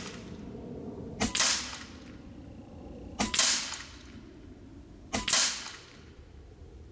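Taipan Veteran II Tactical .25 calibre PCP air rifle firing three shots about two seconds apart, each a short double crack that dies away quickly.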